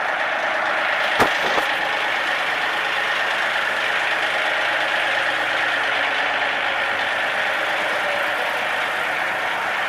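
An engine running steadily, with a sharp click a little over a second in.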